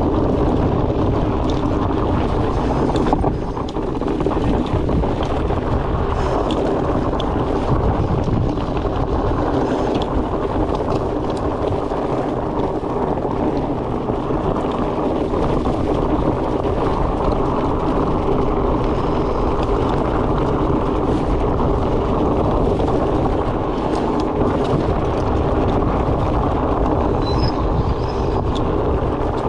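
Wind buffeting the camera microphone over the rumble of fat-bike tyres rolling on the trail, with scattered small clicks and rattles from the bike.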